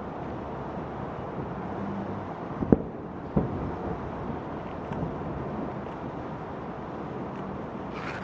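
Two fireworks shells bursting with sharp booms less than a second apart near the middle, the first the louder, over a steady outdoor rumble.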